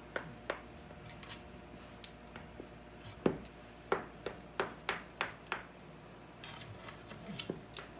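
A dog's claws and body scuffing and clicking against a hard floor and wall as it wriggles on its back: irregular sharp clicks and scrapes, most of them bunched a little past the middle.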